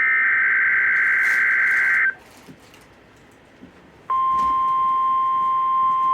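NOAA Weather Radio Required Weekly Test signal: the last of the SAME digital header bursts, a harsh two-tone data buzz lasting about two seconds. After a two-second pause, the steady 1050 Hz warning alarm tone starts about four seconds in and holds.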